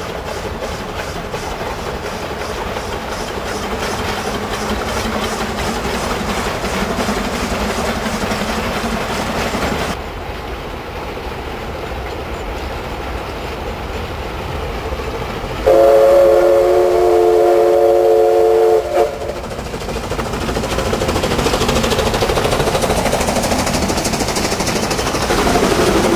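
Narrow-gauge steam locomotive hauling a train of clay wagons on the brickworks railway, running steadily and growing louder as it approaches. About 16 seconds in it gives one long whistle blast lasting about three seconds, the loudest sound.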